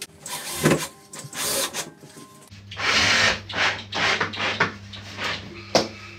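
Cordless drill driving screws through plasterboard into the ceiling battens, in a series of short bursts that come close together in the second half.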